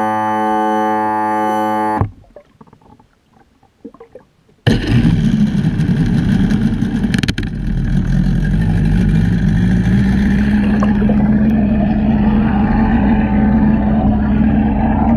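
Synthesizer music for about two seconds, then a quieter gap. About four and a half seconds in, an Evinrude Ocean Pro 115 two-stroke outboard motor cuts in suddenly, heard underwater: a deep running rumble whose tone rises over a few seconds and then holds steady as the stainless propeller churns the water into bubbles.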